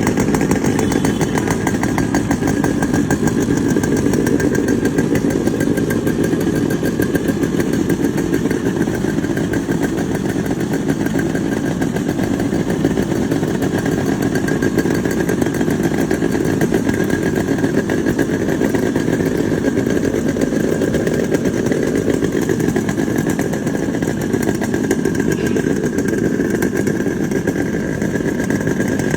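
Modified Yamaha RX-series two-stroke single-cylinder motorcycle engine running steadily, with a fast, even exhaust pulse and only small swells in level.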